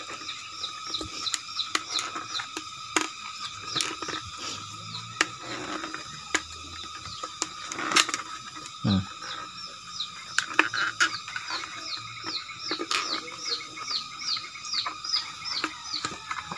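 Small birds chirping in quick repeated runs of short high notes. Scattered sharp plastic clicks and knocks come from a motorcycle headlight lens being pressed and handled on its housing, the most distinct about three and eight seconds in.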